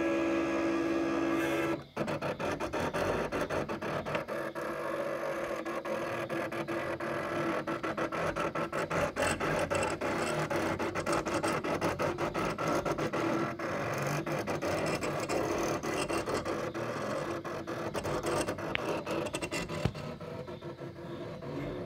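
First-generation Cricut CRV001 cutting machine running a cut: its motors drive the blade carriage and mat roller along a gasket outline. There is a steady whine for the first two seconds, a brief break, then a rapid stuttering chatter of many short moves that changes pitch as the path turns.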